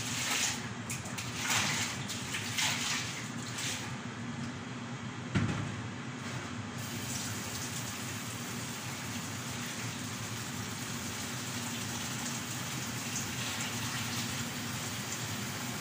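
Water being splashed onto a tiled floor for rinsing: a few short splashes in the first seconds and a single knock about five seconds in, then a steady rush of running water.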